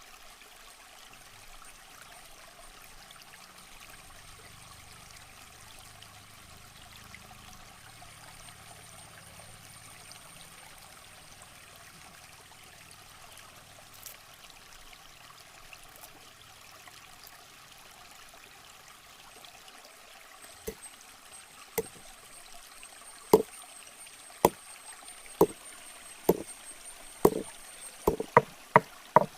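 Water trickling steadily. About two-thirds of the way in, sharp knocks begin in an even rhythm, about one a second, quickening to about two a second near the end.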